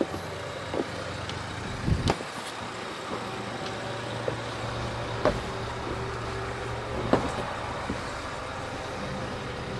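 Footsteps and camera-handling knocks from someone walking across a boat's deck: a few dull thumps, the loudest about two seconds in and others about five and seven seconds in, over a steady low hum.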